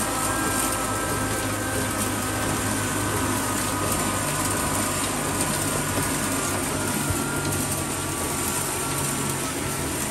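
Old 22 HP black oil diesel stationary engine running steadily, driving a belt-driven flour mill grinder, with a constant hum and a steady higher whine over it.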